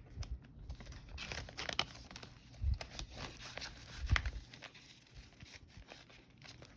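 Paper banknotes being handled and tucked into a savings binder pocket, crinkling and rustling, with two soft thumps, one near the middle and one a little later.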